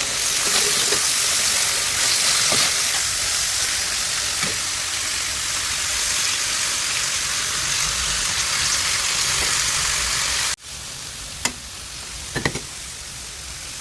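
Pork and vegetables sizzling as they stir-fry in a hot pan, a loud steady hiss. About ten seconds in it drops away sharply to a quieter sizzle with a couple of short clicks.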